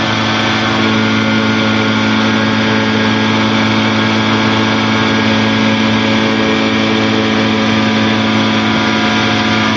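Quicksilver Challenger II light aircraft's engine and propeller droning steadily in level flight, heard from inside the cockpit.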